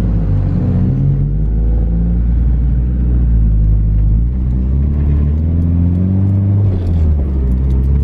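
Car engine running loud and low, its pitch easing down, then climbing as it accelerates from about halfway through, dipping briefly near the end and rising again.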